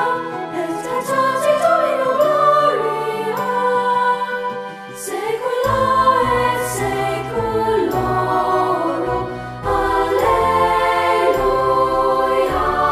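Choral music: a choir singing a slow, hymn-like piece with sustained notes. A low bass part comes in about halfway through.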